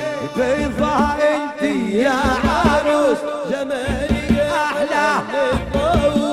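Arabic music with a sliding, ornamented melody line over steady drum beats.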